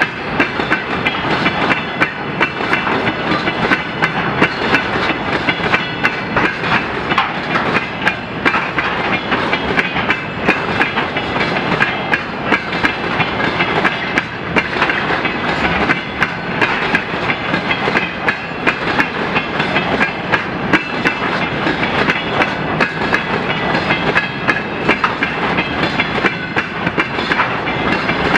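Freight train of railway tank cars rolling steadily past, wheels clattering over the rail joints in a dense, unbroken run of clicks, with high metallic ringing from the wheels and rails.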